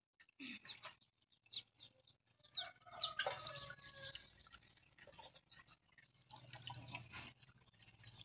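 Chickens clucking faintly, a scatter of short calls with a busier run about three seconds in and another near the end.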